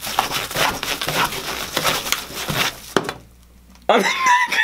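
Plastic clamshell dessert container being pressed and scraped across a table, crackling and crunching for about three seconds. Near the end there is a brief wordless voice.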